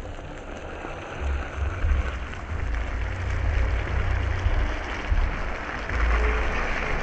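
Fish fillets sizzling in hot oil in a skillet, a steady crackling fry that grows louder near the end. Wind buffets the microphone with a low, uneven rumble.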